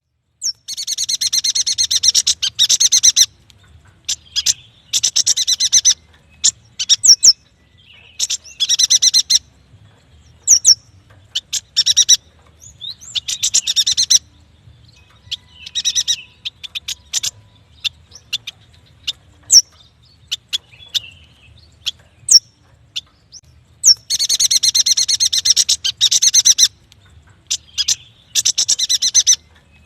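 Yuhina singing: fast, high chattering phrases of a second or two, repeated again and again with short sharp chirps and brief pauses between them.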